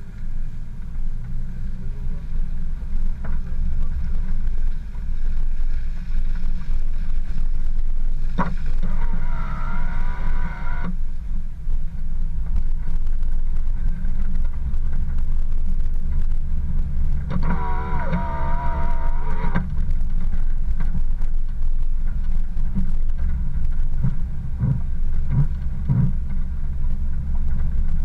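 Off-road vehicle driving along a rough gravel dirt track: a steady low rumble of engine, tyres and body vibration, with sharp knocks from bumps near the end. Twice, for about two seconds each, a wavering pitched sound rises above the rumble.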